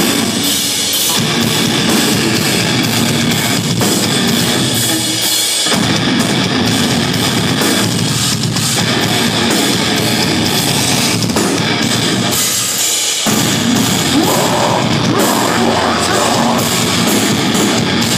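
Hardcore band playing live: distorted electric guitars, bass and a pounding drum kit. The bass and drums drop out briefly about two-thirds of the way through, then come back in full.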